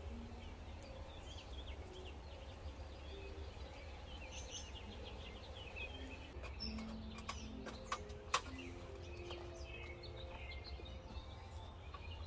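Outdoor ambience: small birds chirping and twittering over a steady low rumble. A few sharp clicks come about eight seconds in.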